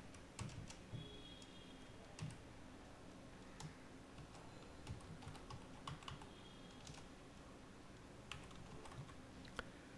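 Faint computer keyboard typing: slow, irregular single keystrokes as text is entered.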